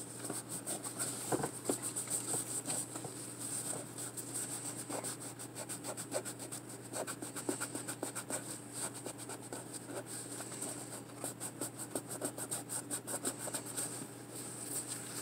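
A WD-40-soaked paper towel rubbed quickly back and forth over the porous plastic top of a coffee maker, scrubbing off red spray paint in a steady run of short strokes that comes fastest in the last few seconds.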